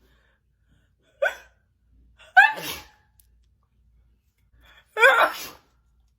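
A woman sneezing three times in a fit: short, sharp voiced sneezes a second or two apart, the second and third longer than the first.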